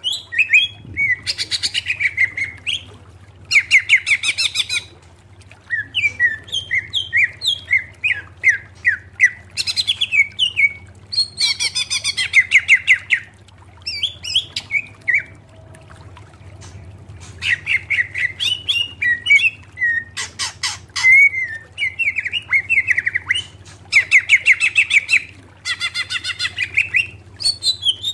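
Greater green leafbird (cucak ijo) singing clear, loud phrases of rapid repeated notes, each burst about a second long with short pauses between.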